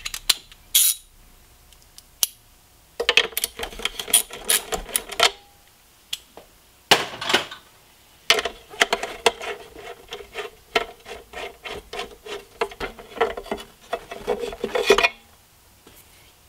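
A socket ratchet clicking as two bolts are backed out with a 10 mm deep socket: two runs of quick clicks, a short one a few seconds in and a longer one through most of the second half.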